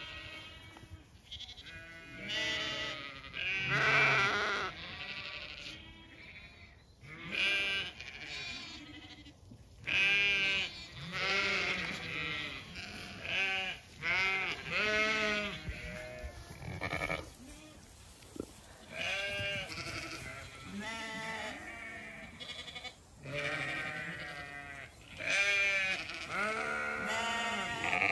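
Zwartbles ewes and lambs bleating over and over, higher and deeper calls following one another and sometimes overlapping, many with a wavering pitch.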